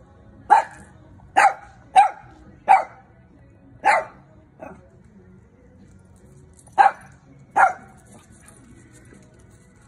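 A dog barking in single sharp barks while playing with another dog: five quick barks in the first four seconds and a fainter one, then after a pause two more.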